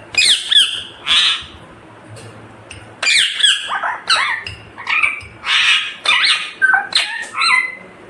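Indian ringneck parakeet calling: a few loud squawks with falling pitch, then, after a pause of about a second and a half, a longer run of rapid squawks and chatter.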